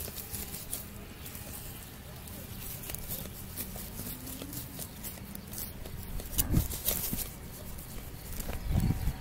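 A pig lying asleep gives low, soft grunts, two stronger ones in the second half, while its belly is rubbed, with rustling of fur and grass.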